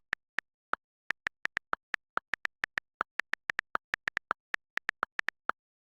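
Smartphone interface clicks: a quick, uneven run of short, sharp ticks, about five a second, with dead silence between them, stopping shortly before the end.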